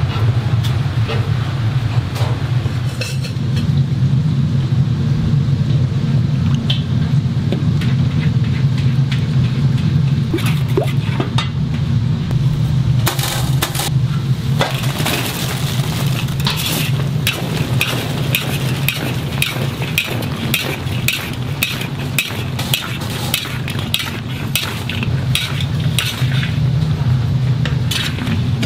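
Metal utensils clinking and scraping against steel trays and a wok as sauced fried chicken is handled, over a steady low hum. The clinks are sparse at first and come thick and fast from about halfway through, after a short rush of noise.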